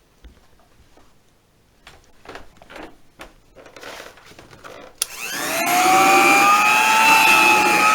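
A few faint handling knocks, then about five seconds in a click as a vintage Hamilton Beach straight-suction hand vacuum is switched on; its motor winds up with a rising whine and settles into a loud steady run.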